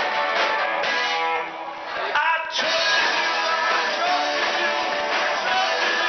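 Live rock band playing, with electric guitar strumming over drums and keys. The music drops back briefly about a second and a half in, then the full band comes back in.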